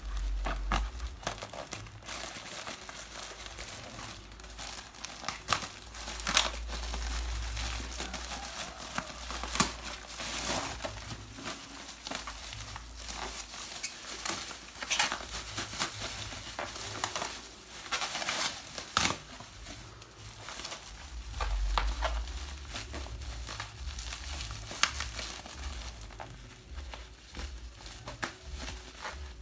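Parcel packaging being crinkled and torn open by hand, with irregular crackling and rustling throughout and a few sharper rips.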